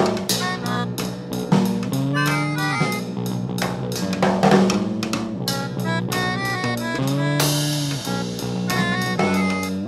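Instrumental music with a drum kit keeping a steady beat under a stepping melodic line.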